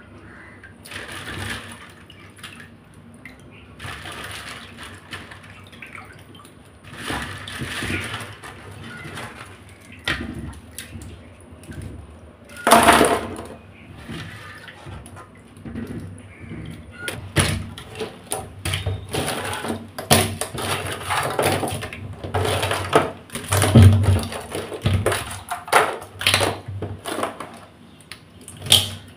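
Crab pieces being washed by hand in a pan of water in a steel sink: irregular sloshing and splashing, with one louder splash about halfway through. In the second half, many quick clicks and knocks of crab shell pieces being handled against the pan.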